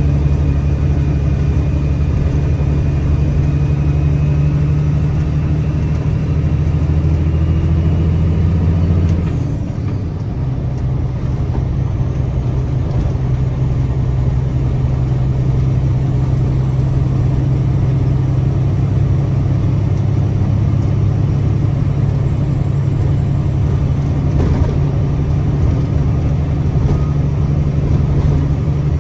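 Mack Granite truck's diesel engine running under way. About nine seconds in the engine note breaks off with a brief dip and settles at a different pitch, as at a gear change, then runs steady again. A faint high whine sits above it.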